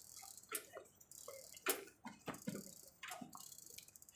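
A few faint, irregular clicks and knocks, the clearest about a third of the way in, over a faint hiss.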